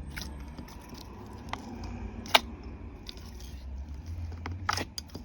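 Slime being pressed and worked by hand: scattered sticky clicks and small pops, the loudest a sharp snap about two and a half seconds in and a quick cluster near the end, over a low rumble.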